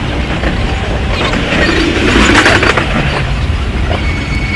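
Inside a moving Intercity Express passenger coach: the steady low rumble of the running train, with a louder stretch of rattling clatter about two seconds in.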